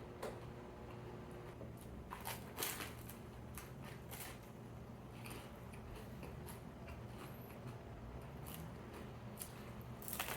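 Close-up eating sounds: chewing and wet mouth clicks, with a few sharper crunchy bites around a couple of seconds in and again near the end, over a steady low hum.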